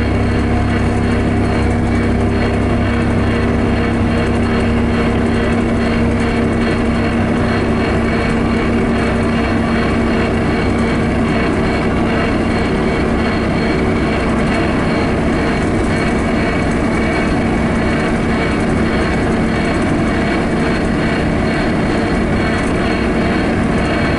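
Steady road and engine noise heard from inside a moving vehicle at highway speed: a deep rumble with a constant droning hum.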